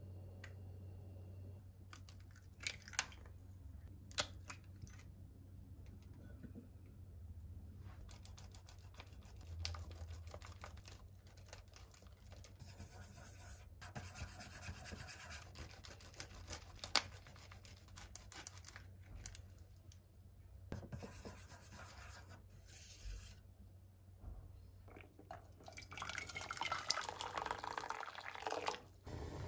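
Wooden chopsticks whisking beaten egg in a small ceramic bowl: a long run of fast, light clicks and scrapes against the bowl. Two sharp knocks a few seconds in, and near the end water pouring from a pot into a pan.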